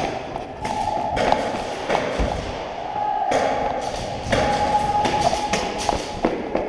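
Airsoft guns firing in repeated bursts of one to two seconds each, several in a row, mixed with sharp clicks and thuds.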